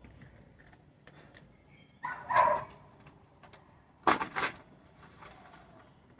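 A dog barking: one bark about two seconds in, then two quick barks about four seconds in.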